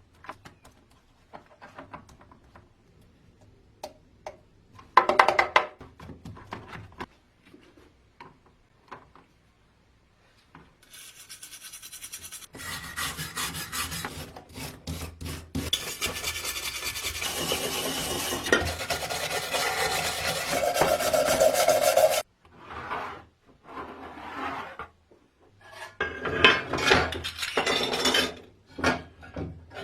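Rasping and rubbing of hand abrasive work on a part of a vintage coffee grinder under restoration. Scattered short scrapes and knocks come first, then a long stretch of continuous rasping that grows louder and cuts off suddenly, then more short scrapes near the end.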